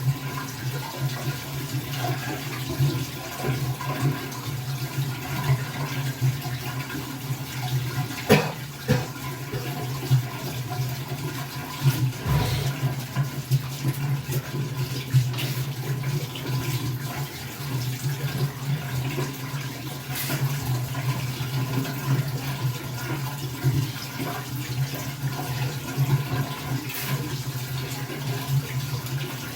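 Tap water running steadily into a bathroom sink, with a couple of short knocks.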